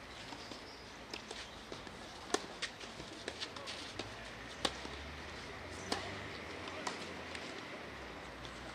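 Tennis ball knocks on a clay court: a series of sharp single hits a second or two apart, the loudest a little over two seconds in and again near the middle, over a steady outdoor background hum.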